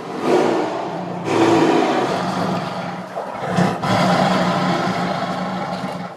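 Tiger roaring and growling, several long, rough roars back to back with brief breaks between them.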